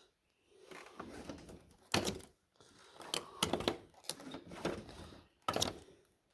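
Several irregular clicks as the ignition key of a John Deere X300 lawn tractor is turned, with no starter cranking and no engine catching. Only the headlights click on: a no-start fault, though the battery tests good.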